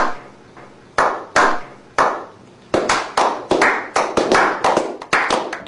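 A slow clap by a small group: single claps about a second apart, quickening after about two and a half seconds into steady applause of a few pairs of hands.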